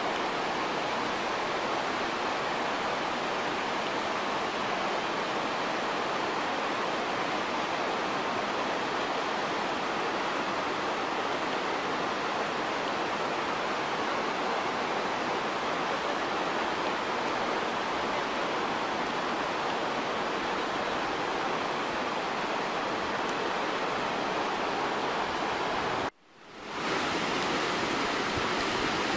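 Steady rush of river rapids running high and muddy. The sound drops out for a moment near the end and fades back in.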